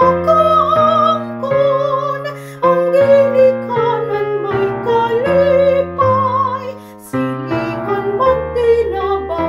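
A woman's solo voice singing a Cebuano hymn with vibrato, phrase after phrase, over piano accompaniment playing sustained chords.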